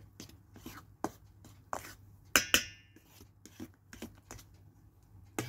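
A metal spoon stirring thick cake batter in a large stainless steel bowl: short scrapes and taps against the bowl about two to three times a second, with two louder ringing clinks on the bowl about two and a half seconds in.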